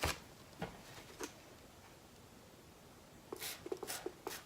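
Faint handling noise on a tabletop: a few scattered light clicks, a quiet stretch, then a quick run of small taps and knocks near the end.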